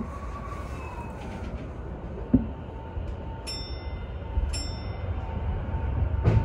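Electric commuter train setting off from a station: a low hum with a faint steady whine, two short bell-like chimes about a second apart a little past halfway, then the rumble of the train starting to roll, growing louder toward the end.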